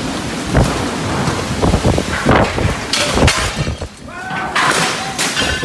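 Heavy rain and storm wind, with gusts buffeting the microphone and a run of loud, sudden bangs and crashes in the first few seconds.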